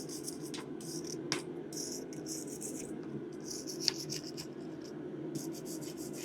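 Wire brush scrubbing scale off a 5/8-inch square steel bar in repeated scratchy strokes, with a couple of sharp clicks, over a steady low hum.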